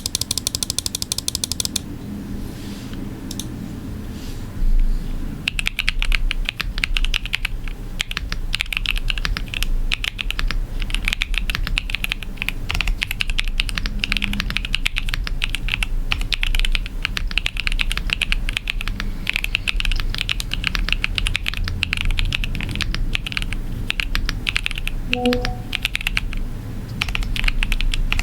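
Fast, continuous typing on a Press Play Essential 75 mechanical keyboard with linear switches and PBT Cherry-profile keycaps. A dense run of key clicks begins about five seconds in, after a short patterned sound and a quieter stretch.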